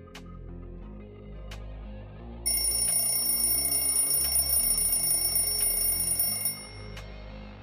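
Alarm clock ringing for about four seconds, starting a couple of seconds in and cutting off suddenly, loud over background music.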